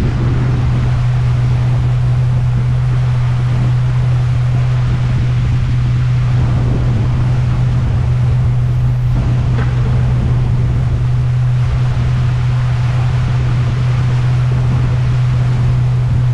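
Boat motor running at a steady low pitch, under a constant rushing noise of water and wind.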